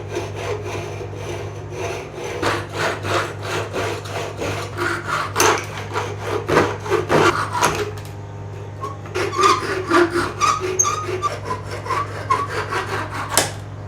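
Repeated back-and-forth strokes of a hand tool rasping on wood, with a few short squeaks about two-thirds of the way through.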